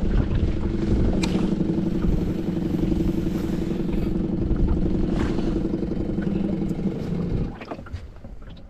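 A boat's motor running with a steady hum, cutting off suddenly about seven and a half seconds in, with wind noise on the microphone.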